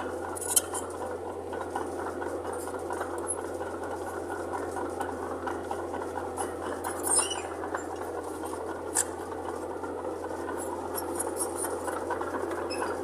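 Mitsubishi BD2J bulldozer's diesel engine running steadily, with a few short metallic clinks.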